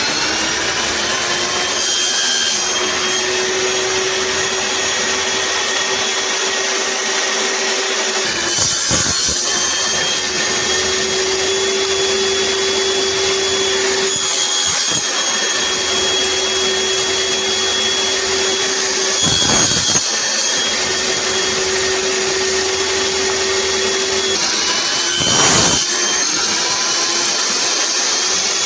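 Table saw running steadily with a constant whine, which drops out briefly a few times. There are short louder bursts around 9, 19 and 25 seconds in, the last one the loudest.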